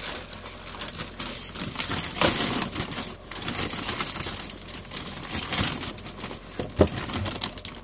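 Large plastic bag of pelleted pine bedding being handled, crinkling and rustling in irregular bursts with a few sharp clicks.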